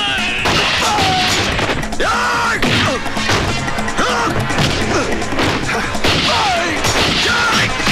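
Action-film fight soundtrack: repeated crashes and hard blows over loud dramatic background music.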